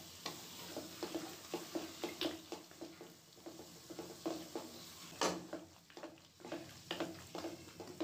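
A spatula stirring chickpeas in a sizzling masala in a metal pot, scraping and knocking against the pot in an irregular rhythm, with one louder knock about five seconds in.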